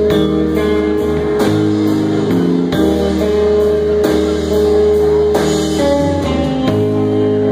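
Live rock trio of electric bass, electric guitar and drum kit playing an instrumental passage, cymbal crashes marking the beat. Near the end they hit one last chord together and let it ring.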